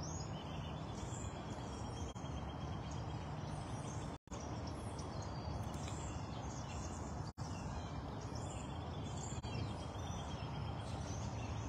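Steady outdoor background noise with a low rumble, and faint scattered high chirps of small birds. The sound cuts out for an instant twice.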